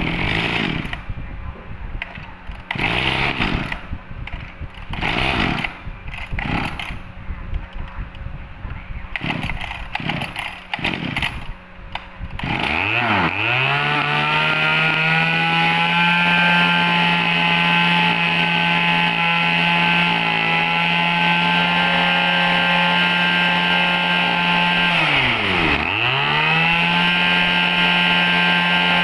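Kawasaki TG24 two-stroke brush-cutter engine being pull-started: several short coughing attempts, then it catches about twelve seconds in, revs up and runs fast and steady. Near the end the revs drop sharply once and pick straight back up. The seller says the fuel had drained, the reason it was slow to start.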